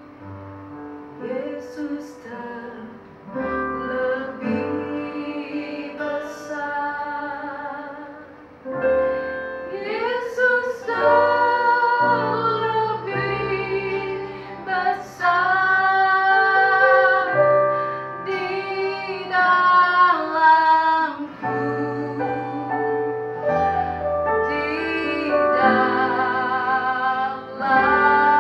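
Women singing an Indonesian worship song, the lead voice carrying the melody over a band of keyboard, acoustic guitar and bass. It starts softly and fills out within the first few seconds.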